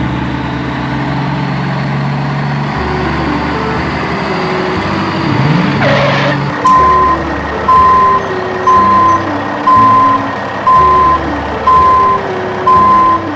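Reversing beeper on a truck sound effect, starting about halfway through and beeping steadily about once a second. It plays over background music with a simple stepping melody. Just before the beeping starts, a brief sweep rises and falls in pitch.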